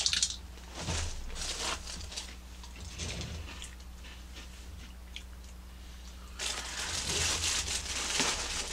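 Cap'n Crunch Birthday Crunch cereal rattling out of the box into a bowl at the very start, then dry cereal crunched while being chewed. A louder rustling comes near the end.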